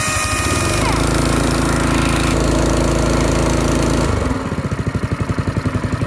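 Honda GX160 single-cylinder engine on a wheelbarrow air compressor. Under a second in, it kicks up from a slow idle to high RPM, runs steadily for about three seconds, then drops back to idle. A brief whistle slides down and stops about a second in. This is the pneumatic throttle control kicking the engine up and down as it should, now that the check valve and vent are cleaned.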